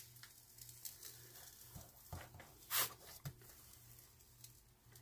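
Paper sheet rustling as it is handled and folded back off a diamond painting canvas: a few soft rustles and taps, the loudest a short swish a little past halfway.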